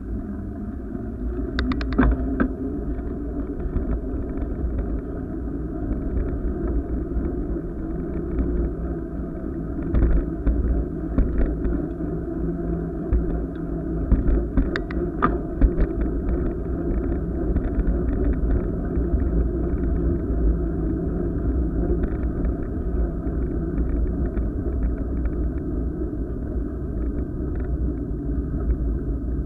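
Steady low rumble of wind and rolling noise on a camera moving along a paved path, with a few scattered clicks and knocks, the sharpest about two seconds in and again about fifteen seconds in.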